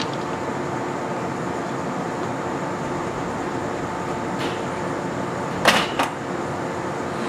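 Stationary electric train humming steadily, with several fixed tones from its running equipment. A light click comes a little past halfway, then two sharp knocks close together near the end as the cab-end side door is shut.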